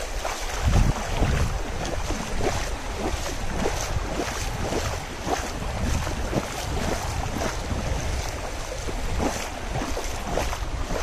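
Small waves of the incoming tide washing and lapping over a shallow, muddy tidal flat, a dense wash of many small splashes. Wind buffets the microphone with a low rumble.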